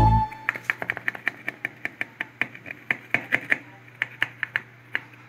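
Quick, irregular light clicks and taps, several a second for about four and a half seconds, as hands handle oval metal molds of hardinera on a plastic tray. A faint steady low hum runs underneath, and a music track cuts off at the very start.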